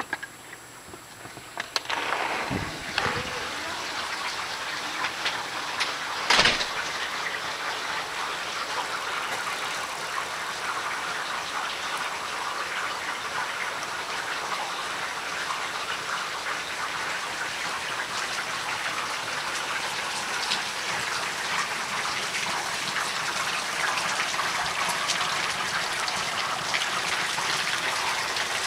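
Rain falling steadily outdoors: an even hiss thick with small drop ticks that comes up about two seconds in. Sharp knocks cut through it at about two and about six seconds in.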